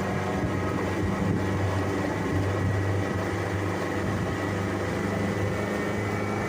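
Boat's outboard motor running at a steady speed.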